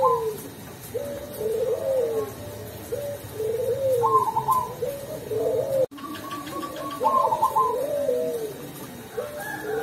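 A black 'cemani' zebra dove (perkutut) cooing its song over and over, each phrase a series of rounded coos with a quick trill of higher notes at the head of some phrases. Its keeper calls this voice 'ulem'. The sound cuts out briefly about six seconds in.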